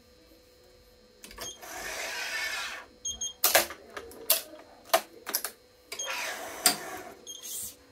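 Hands working a Yonex ES5 Pro badminton stringing machine and string. Two rasping swishes of about a second each, the first about a second and a half in and the second about six seconds in, with a run of sharp clicks and snaps from the clamps and tensioner in between and after.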